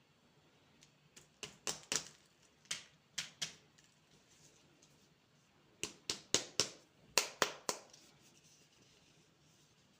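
Candy and its packaging being handled by hand: three clusters of sharp clicks and crackles, a few strokes each, the loudest group about six to eight seconds in.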